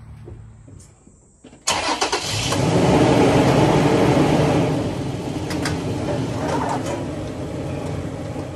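A 2013 Toyota Tacoma's V6 engine starting about two seconds in. It runs loudest for the first couple of seconds after it catches, then settles to a steadier idle.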